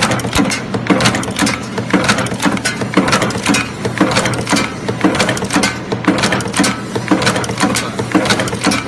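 Automatic blind rivet heading machine running at speed: a rapid, even clatter of heading strokes, several a second, over a steady mechanical hum.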